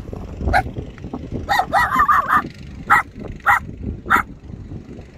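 A dog barking: one bark, a quick run of about four, then three more spaced roughly half a second apart.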